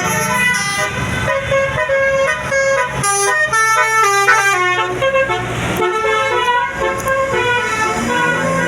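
Bus telolet basuri musical air horn playing a tune: a continuous run of quick stepped notes, the pitch jumping every fraction of a second.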